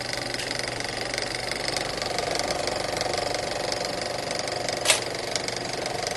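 Piston aircraft engine running steadily with a fast, even pulse, and a single sharp crack about five seconds in.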